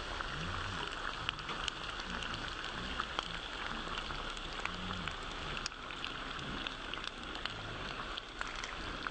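Meat and fat sizzling in a hot cooking pot: a steady crackling hiss with many scattered sharp pops.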